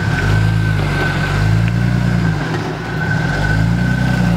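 Jeep Cherokee rock crawler's engine revving up and down in about four swells as it crawls over boulders, with a steady high whine running over it until near the end.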